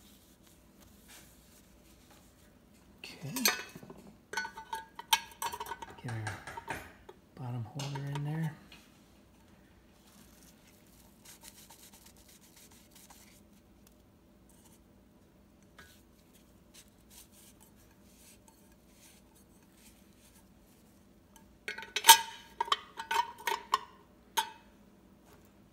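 Metal bowl-locking plate of a KitchenAid stand mixer clinking and rattling against the mixer base as it is handled, a few sharp ringing clinks a few seconds in and a quick run of them near the end as the plate is set back into its recess.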